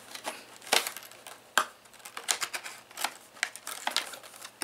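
Irregular clicks and light taps of a small cardboard product box being handled and picked at in the hands, with two sharper clicks in the first two seconds.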